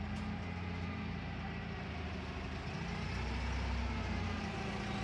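A heavy vehicle engine idling steadily, growing a little louder in the second half.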